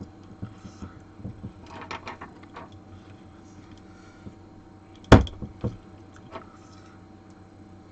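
Arms of a soldering station being handled and pressed into its base, with light clicks and taps and one sharp knock about five seconds in, followed by a smaller one.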